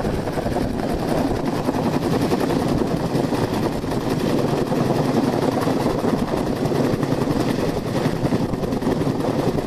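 Helicopter hovering overhead during a hoist: rotor blades chopping rapidly and steadily over a continuous rush of engine and downwash noise.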